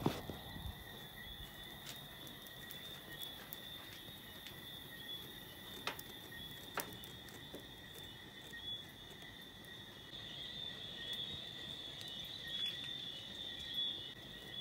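Insects chirring steadily at a high pitch, with two short clicks about halfway through.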